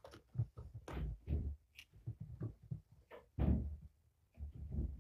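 Kittens chasing and wrestling: a string of irregular soft thumps and bumps as paws and bodies hit the floor and play furniture, the loudest a little past three seconds in.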